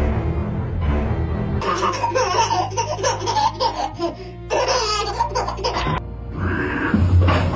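Laughter in two stretches of a few seconds each, over background music.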